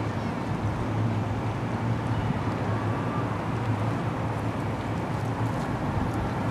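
Steady wind rumbling on the microphone outdoors: an even low rumble and hiss with no distinct events.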